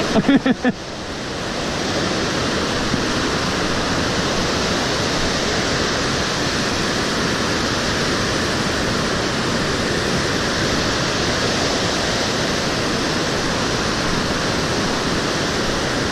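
Whitewater river rapids rushing over boulders: a steady, even rush of water. A short burst of laughter comes in the first second.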